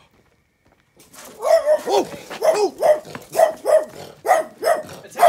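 A dog barking over and over, about two or three barks a second, starting about a second in.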